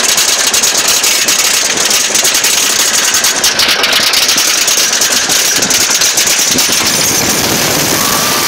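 Train of the GCI wooden roller coaster White Lightning running on its track, heard from the back row: a loud, rapid clattering rattle over a steady rush of noise, the clatter thinning out after about five seconds.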